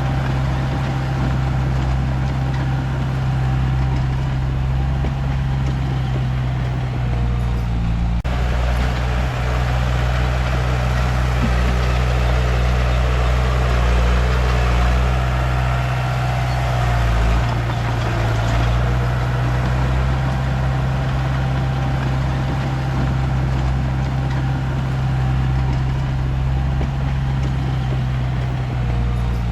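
Komatsu D31P bulldozer's diesel engine running steadily and loud, its note shifting a little about eight seconds in and again around seventeen seconds in.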